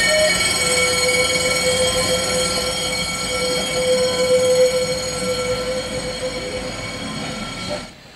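Manx Electric Railway tramcar 6 running slowly round a curve, its wheels squealing steadily in several high tones over the noise of the running gear. The sound cuts off suddenly near the end.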